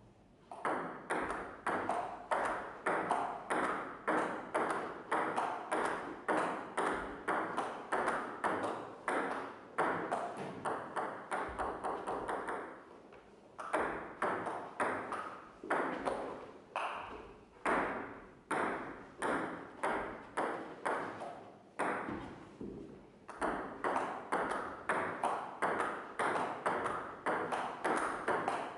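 Table tennis rally: a steady run of sharp ball strikes on paddle and table, about two to three a second, each with a short ringing tail. The run breaks off briefly twice, about 13 and 22 seconds in, as points end and play restarts.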